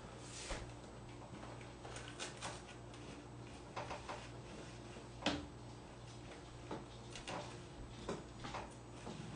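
Scattered light clicks, taps and rustles of hand work on decoupage tissue paper and tools, over a steady low hum. The sharpest knock comes about five seconds in.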